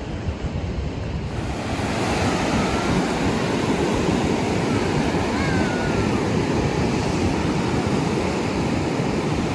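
Surf from a calm sea: small waves breaking and washing ashore in a steady rushing noise that grows louder about a second and a half in, with some wind on the microphone.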